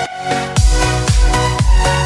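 Electronic dance music with a steady beat; a heavy kick drum and bass come in about half a second in.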